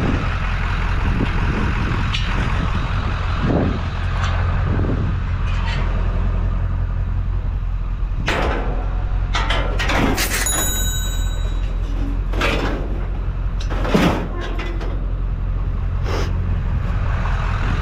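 Pickup truck engine idling steadily, with a handful of clanks and knocks as scrap metal is handled and loaded into the truck bed. One clank, about ten seconds in, rings on briefly like struck metal.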